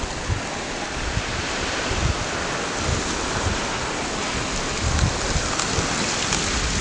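Drifting river ice floes and slush ice rubbing and grinding against one another, a steady hissing rustle with a few small crackles near the end. Wind buffets the microphone in low, irregular gusts.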